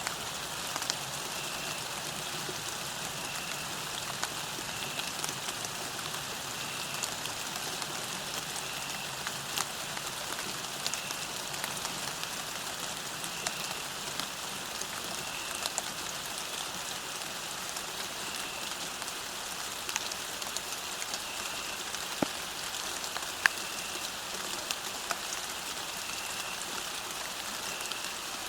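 Steady rain falling on a path, with individual drops ticking sharply here and there. A faint short high chirp repeats every second or two behind the rain.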